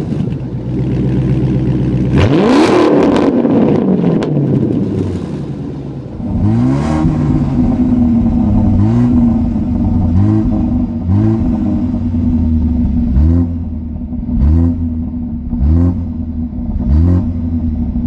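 A Chrysler 300 SRT8's Hemi V8 through a cats-only exhaust (catalytic converters but no mufflers) idles and is revved up and back down once. After about six seconds it gives way to a BMW F30 328i's turbocharged four-cylinder through its dual-tip exhaust, blipped in short revs about once a second.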